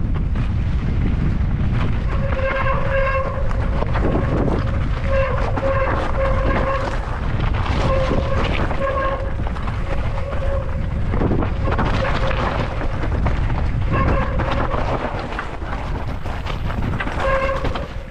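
Mountain bike rolling fast over a rough gravel trail, with a heavy rumble of tyres, chatter and wind on the helmet-camera microphone. A buzzing tone comes and goes in short spells, over and over: the rear hub's freewheel ratcheting as the rider coasts between pedal strokes.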